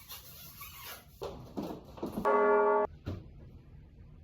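A short, steady pitched tone with many overtones, lasting about half a second and cut off abruptly about two seconds in, preceded by faint rustling.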